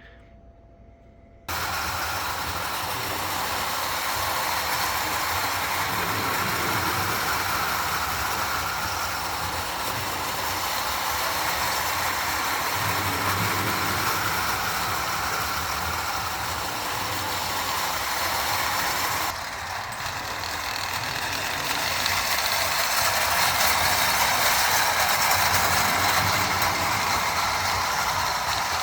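Marx Commodore Vanderbilt tin-plate toy train running on metal O-gauge track: a steady gear whir with the wheels and tin cars rattling along the rails, starting abruptly about a second and a half in and briefly dropping away about two-thirds of the way through.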